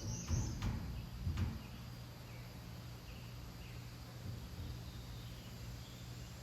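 Quiet outdoor ambience with a steady low hum and faint bird chirps; a few soft knocks and rustles come in the first second and a half.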